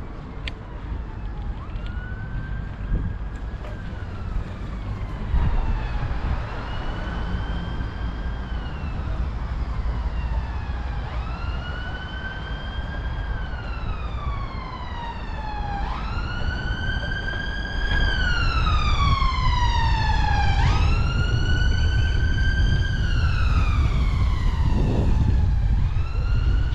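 Emergency vehicle siren wailing. Each cycle jumps up quickly in pitch, holds, then falls slowly, repeating about every five seconds and growing louder as it approaches. Under it is a steady low rumble that rises about two-thirds of the way through.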